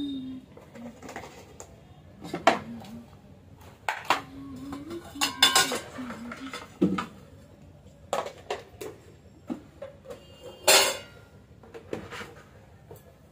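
Steel and plastic food containers and dishes clinking and knocking as they are handled and taken out of a refrigerator: irregular clanks and taps, with louder clanks about two and a half seconds in and near eleven seconds.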